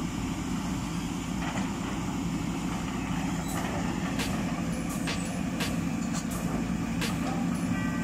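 Diesel engines of a working hydraulic excavator and a concrete mixer truck running with a steady low rumble, with several sharp knocks in the second half.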